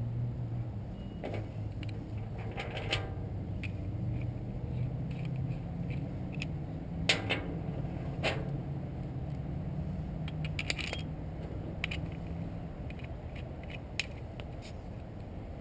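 Scattered metallic clicks and clinks as a PTXtreme paintball pistol and its small metal parts are handled and loaded at a glass table, the sharpest two about seven and eight seconds in.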